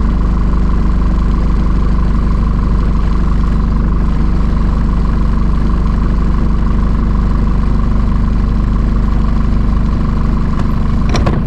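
Sailboat's inboard engine running steadily at low speed, with a steady higher tone over its low drone.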